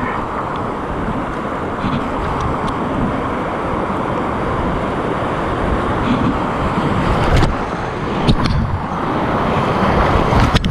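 Rushing whitewater river and wind buffeting the camera's microphone as a kayak paddles into a rapid, with several sharp splashes in the last few seconds as waves and spray break over the boat.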